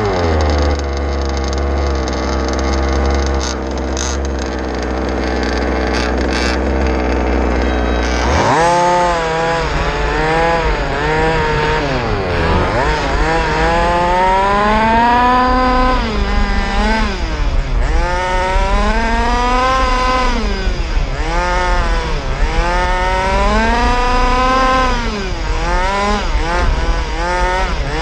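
Onboard sound of an RC race car's motor. It holds a steady low drone, then from about eight seconds in it revs up and down again and again, its pitch rising and falling every couple of seconds as the car works around the dirt oval.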